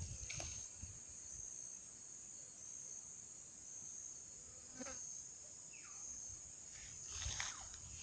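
Insects shrilling in one steady, high-pitched drone, with a brief falling whistle about six seconds in and a few faint short sounds near the end.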